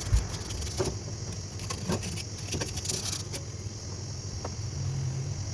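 Light metallic clicks and taps from hand work on metal parts, over a steady low hum. The clicks stop about three and a half seconds in.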